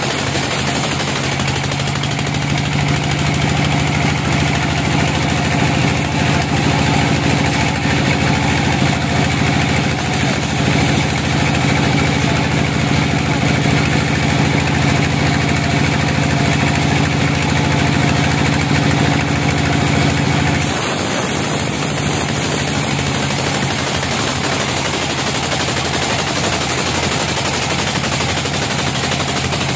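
Vertical band sawmill running, its blade cutting lengthwise through a log: a loud, steady mechanical noise with a low hum. The hum drops away abruptly about two-thirds of the way through.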